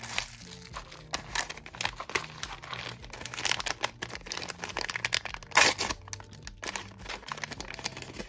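Blind-box toy packaging being opened by hand: wrapping crinkling and crackling in irregular handling noises, with the loudest crackle about five and a half seconds in.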